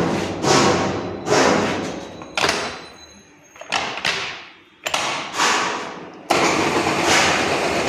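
MAS VR4 radial drilling machine: a series of about seven short mechanical bursts, each starting sharply and dying away within a second, then from about six seconds in the machine runs steadily.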